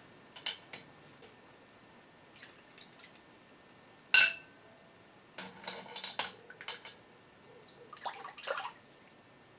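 Small steel bolts handled with metal tongs, dipped in water and dropped into a glass dish of WD-40: scattered small clinks and drips, with one sharp ringing clink about four seconds in.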